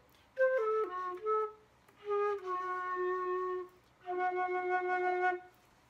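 Silver concert flute played solo in three short phrases: a quick run of notes stepping downward, then two long held low notes, with brief gaps between the phrases.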